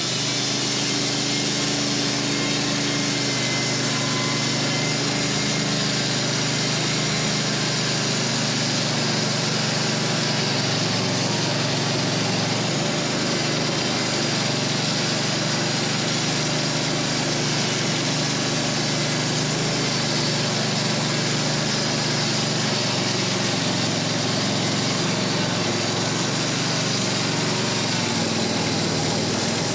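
Wood-Mizer LT15 portable band sawmill running steadily, its band blade sawing through a hard maple log. Engine hum sits under a dense, even sawing hiss, with no breaks.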